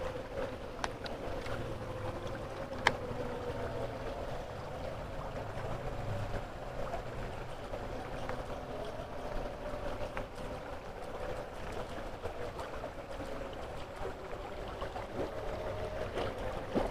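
Steady rush of river water flowing, with a faint steady hum underneath and a sharp click about three seconds in.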